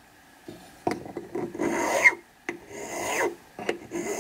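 Flat hand file rasping across the edge of a small piece of sheet metal held against a wooden bench pin, in several strokes about a second apart after a short pause, truing the sawn edge up to a scribed line.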